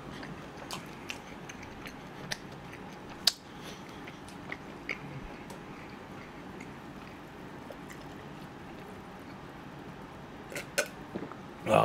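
A person chewing chewy cold noodles, with scattered sharp clicks of chopsticks and utensils and one louder click about three seconds in, over a steady background hiss. Near the end a few clicks as he drinks from a metal tumbler.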